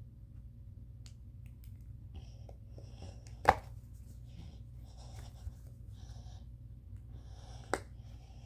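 Plastic phone case being worked off and back onto the phone right at its microphone: soft rubbing and small taps, with two sharp clicks, the louder one about three and a half seconds in and another near the end, over a steady low hum.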